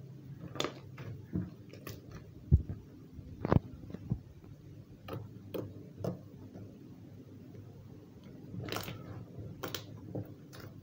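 Blue clear slime mixed with clay being squeezed and poked by hand, giving irregular sticky clicks and small pops. Two sharper snaps come about a second apart a few seconds in, and a quicker cluster of pops near the end.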